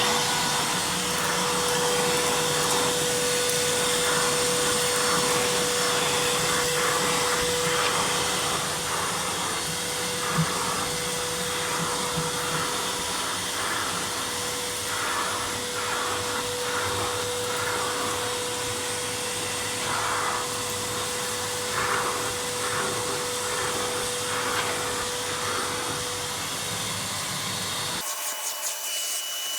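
GNE 2200-watt vacuum cleaner running at its maximum setting, a steady motor whine and air rush with its brush on, going over a carpet. Near the end the sound changes abruptly to a thinner, higher whine without the low hum.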